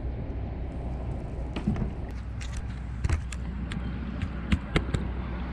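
Steady low wind rumble on the microphone, with a run of sharp knocks and clicks that come thicker near the end.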